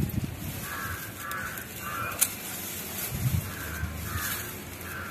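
Crows cawing in two series of about three caws each, the first in the opening two seconds and the second starting a little past halfway. A single sharp click about two seconds in.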